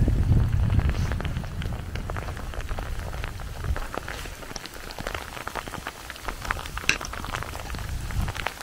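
Rain falling, with single drops striking a surface as irregular sharp taps. A low rumble under it dies away within the first couple of seconds.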